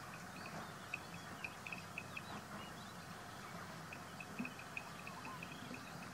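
Animal chirps: short high calls repeating in quick runs of about five a second, with a pause in the middle, and a few brief rising calls, over a steady background hiss.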